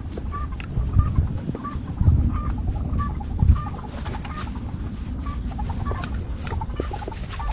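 Chickens clucking in short, repeated notes, over a steady low rumble with a few heavier thuds.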